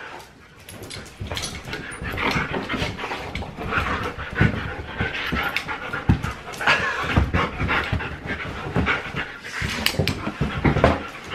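Several husky dogs panting and moving about on a couch, with irregular scuffles and thumps of paws throughout.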